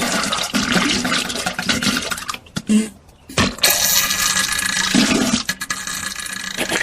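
Diarrhea sound effect: wet, spluttering fart noises with gushing, splashing liquid. There is a short break about three seconds in, then a long continuous gush.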